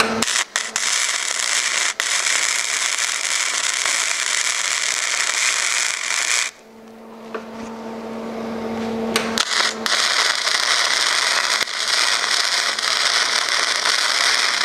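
Longevity Migweld 140 MIG welder's arc crackling and sizzling as it welds a mild-steel T joint, in two stretches of about six and five seconds. Between them the arc stops and the welder's steady hum is heard for about three seconds.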